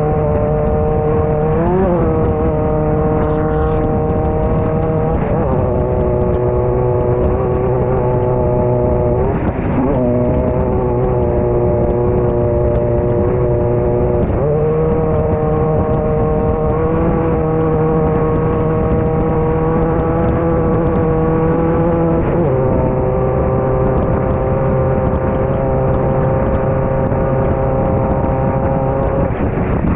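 Off-road race car's engine heard from inside the car, running at speed with a haze of rushing noise. The revs hold steady for a few seconds at a time, then dip or step to a new pitch several times.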